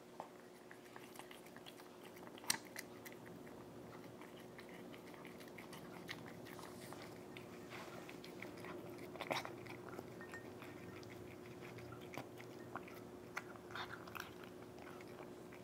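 A cat eating dry food from a ceramic bowl close up: irregular crunching and small clicks of chewing, with a sharper click about 2.5 s in and another around 9 seconds in.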